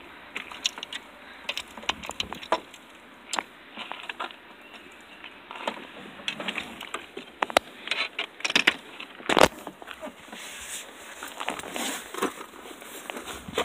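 Scattered clicks, knocks and light rattles of gear being handled in the cargo area of a vehicle, with one louder knock about nine seconds in.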